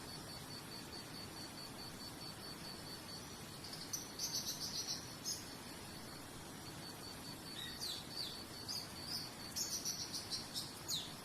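Cricket chirping in an even, high pulsed trill over a steady low hiss of background ambience, with a songbird breaking in with quick runs of sharp notes, once about four seconds in and again from about eight seconds to near the end.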